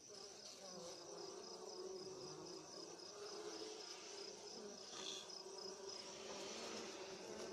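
Bees buzzing in a steady, wavering hum, disturbed in their nest in a tree hollow as a hand pulls the comb out. A cricket chirps in an even, fast pulse behind them until about six seconds in.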